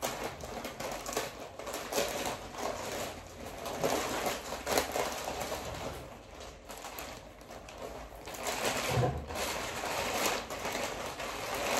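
A bag of spicy chicken-flavoured chips being handled and opened: irregular crinkling and rustling of the packaging.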